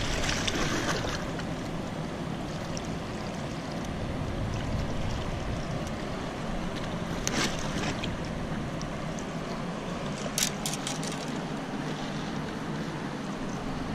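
Steady wind and water noise, with a short rustle about halfway through and a sharp click about three-quarters through as a just-caught skipjack herring is unhooked and handled.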